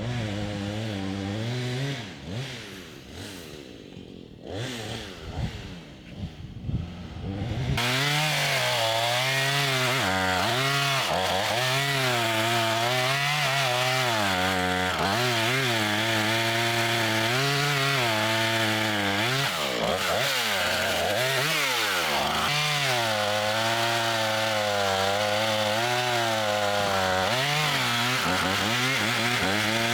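Chainsaw cutting firewood, its engine note rising and falling over and over as it bites into the wood, loud from about eight seconds in after a quieter start.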